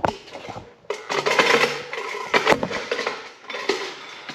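Suzuki LT185 ATV's single-cylinder four-stroke engine being turned over with the recoil starter rope: a rattling whir with metallic clatter, repeated in about three pulls. The engine has almost no compression (4 psi) and spins freely with its valve covers off.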